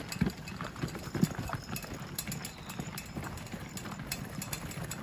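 Footsteps and a stroller's wheels crunching along a gravel trail, an uneven patter of small crunches over a low rolling rumble.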